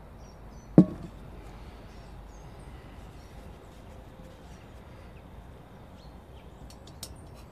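A single sharp knock about a second in, a kitchen knife striking a plastic cutting board, over a steady background hiss, with a few faint high clicks near the end.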